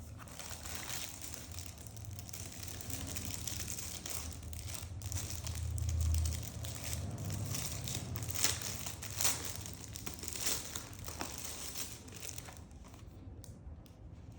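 Packaging crinkling and rustling as it is handled and opened, with a run of sharper crackles about eight to nine seconds in.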